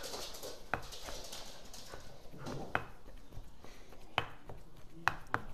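Wooden pestle pounding and mashing hot boiled potato in a mortar: soft squashing with a few sharp knocks, about five in all, where the pestle strikes the mortar.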